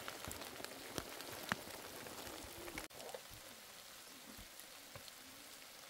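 Rain falling, with scattered drops ticking sharply close by. The level drops suddenly about three seconds in, and the rain carries on more quietly after that.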